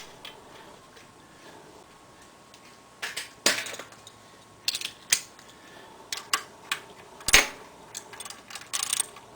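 Scattered sharp metal clicks and taps of screws, a bolt and hand tools being worked on a motorcycle engine's side cover, several in quick pairs, the loudest about seven seconds in.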